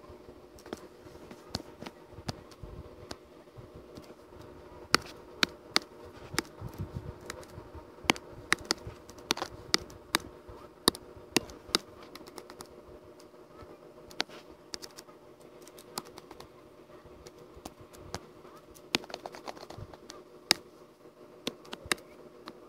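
Irregular clicks and taps at a computer, like keys and a mouse or pen, coming in quick clusters over a steady low electrical hum.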